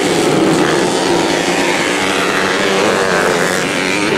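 Small race motorcycle engines running hard on a dirt track, a continuous buzzing drone whose pitch wavers as the throttle changes.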